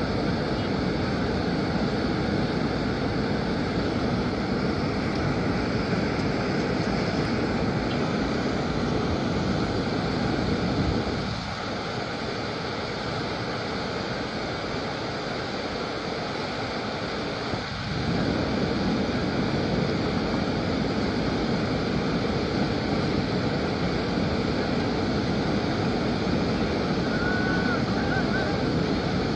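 Steady rushing noise of wind buffeting the microphone over fast-flowing floodwater. The low rumble eases for several seconds in the middle, then comes back.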